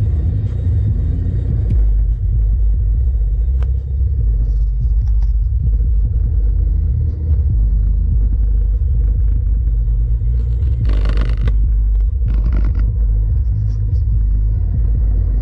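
Two Pioneer subwoofers in a carpeted box, driven by a Boss R1100M monoblock amplifier, playing music: deep, loud bass dominates with little of the upper range. Two short noisy bursts come near the end.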